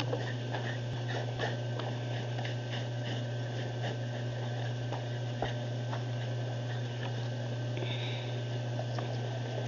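Knife blade scraping singed hair and charred skin off a pig carcass in short, irregular strokes, over a steady low hum.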